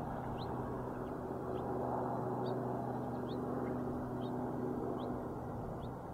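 The tail of the closing music: a held, gong-like low chord slowly fading out. Faint, short, rising high chirps repeat about once a second over it.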